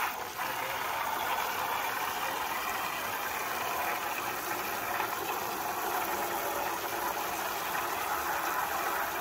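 Garden hose spray nozzle running a jet of water into the shallow water of a plastic kiddie pool: a steady splashing rush.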